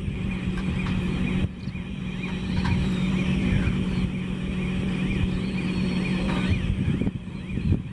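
Heavy machinery running with a steady engine drone and a constant low hum, from the diesel power units of a Cometto box girder transporter and the launching gantry as a concrete box girder is moved into place.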